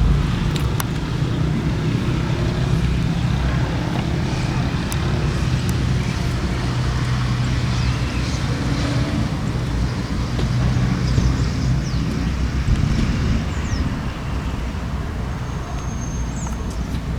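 Outdoor ambience: wind noise with a steady low hum of road traffic, and a few short high chirps in the second half.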